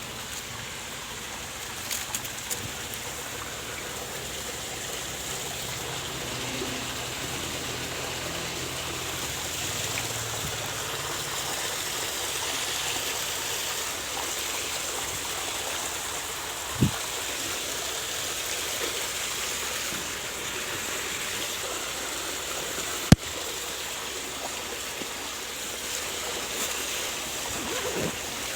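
Stream water running steadily, with two sharp knocks, one past the middle and a louder one about six seconds later.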